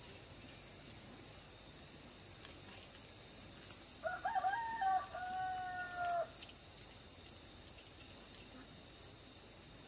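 A rooster crows once, starting about four seconds in and lasting about two seconds, over a steady high-pitched insect drone, typical of crickets.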